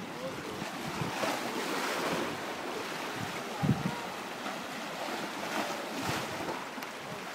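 Sea waves washing and breaking on shoreline rocks, with wind buffeting the microphone. A brief low thump about three and a half seconds in.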